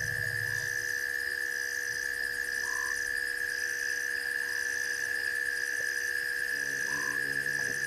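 Night chorus of frogs and insects: a steady high trill over a higher chirp that pulses about once a second, with a short croaking call twice. A low hum comes in near the end.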